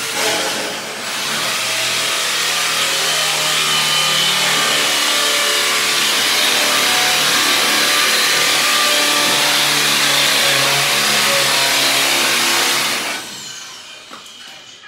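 A loud motor running steadily with a strong hiss for about thirteen seconds, then dying away.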